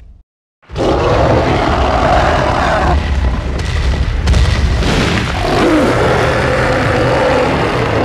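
A King Kong roar sound effect: a long, deep, rumbling giant-ape roar that starts suddenly just under a second in and holds for several seconds.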